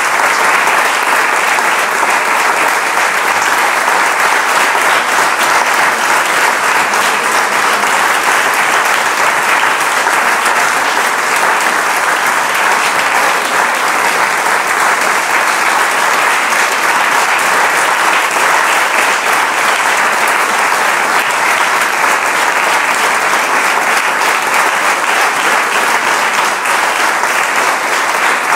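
Audience and choir applauding together: dense, steady clapping that keeps on without a break.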